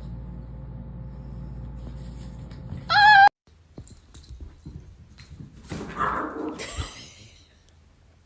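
A pug puppy whines once, a short, loud, high cry that wavers in pitch, about three seconds in, over a low steady hum. After a break, a small dog gives a second or so of rough yapping.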